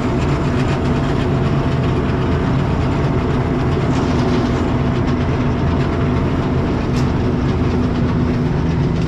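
Heavy diesel harvest machinery running steadily under load, a constant engine drone with a dense mechanical rattle over it.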